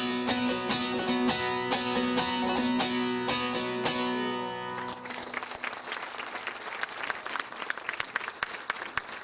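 A plucked string instrument playing a folk tune in a steady strummed rhythm, which ends about five seconds in, followed by audience applause.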